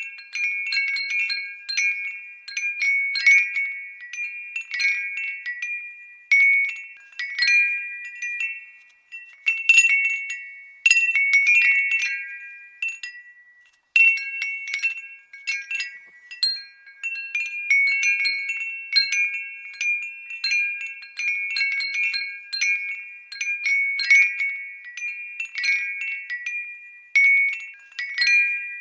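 Glass wind bell (windbell) tinkling as its striker knocks against the glass, irregular bright strikes each ringing out in a few high tones, with a brief lull about halfway through.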